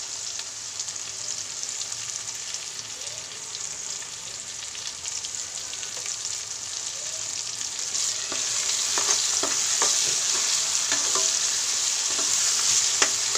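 Tomato, onion and garlic tadka sizzling in hot oil in a metal kadhai. A little past halfway the sizzle grows louder and a spoon stirs through it, clicking and scraping against the pan.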